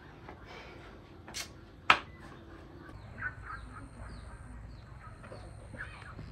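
Farmyard fowl and small birds calling in short chirps. Two sharp knocks come about a second and a half and two seconds in, the second much the louder.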